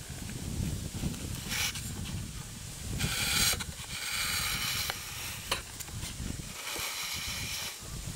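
Footsteps crunching on a gravel track strewn with dry fallen leaves, in uneven crackling bursts with a few sharp clicks, over a low steady rumble of wind on the microphone.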